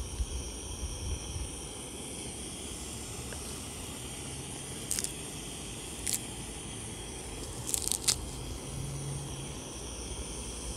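Fresh cleavers (goosegrass) stems being handled and pulled apart by hand: a few short crackling rustles about five, six and eight seconds in, over steady background noise.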